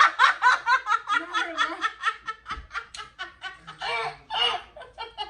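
A person laughing hard: a rapid run of short "ha" pulses, about five a second, giving way to a few longer, drawn-out laughs near the end.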